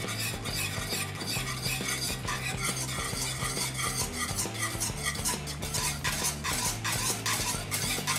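Metal wire whisk stirring thick white sauce (béchamel) in a pan, its wires clicking and scraping against the pan over and over at a steady pace.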